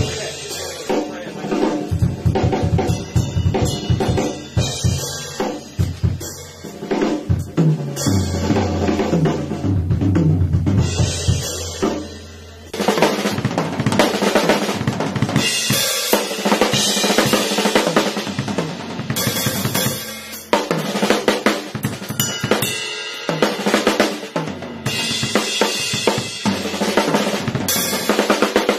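Acoustic drum kit played in a fast solo: rapid low drum and bass-drum hits for about the first twelve seconds, then a brighter, busier stretch with cymbals ringing over snare and kick.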